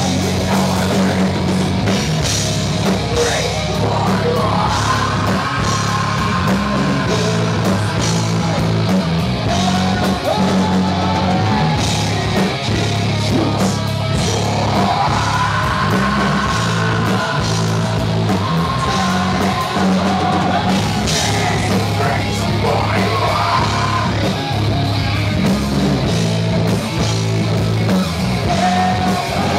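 Heavy metal band playing live: a vocalist singing into a microphone over electric guitar and a drum kit, loud and continuous.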